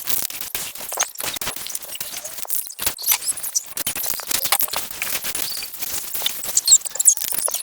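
Aerosol can spraying clear coat onto a plastic bumper: an uneven hiss full of dense crackling clicks.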